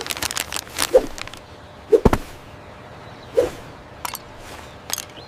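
A run of sharp clicks and thuds, about one a second, with crackling noise bursts in between; the heaviest thud comes about two seconds in.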